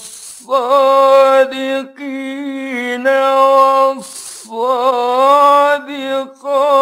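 A male reciter chants the Quran in the melodic mujawwad style, holding long ornamented notes on 'was-sadiqin'. He takes a quick breath at the start and another about four seconds in, before the next held phrase.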